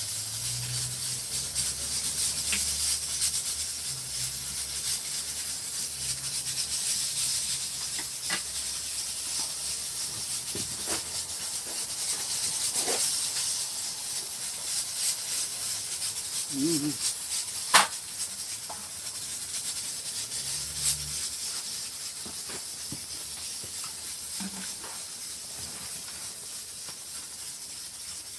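Eating sounds of boiled chicken being chewed and handled, with a few sharp clicks of chopsticks and utensils against ceramic dishes, the loudest a little past halfway, over a steady hiss.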